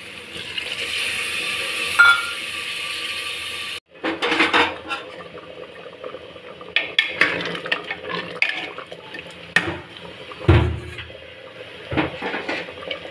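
Water poured into an aluminium pressure cooker over fried chickpea masala, a steady rushing hiss. After a sudden cut, a spoon clinks, knocks and scrapes against the cooker as the watery gravy is stirred.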